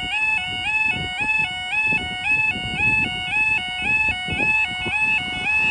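Automatic half-barrier level crossing's audible warning alarm sounding a continuous two-tone warble, stepping rapidly back and forth between a lower and a higher pitch: the warning that a train is approaching and the barriers are down. An irregular low rumble runs underneath.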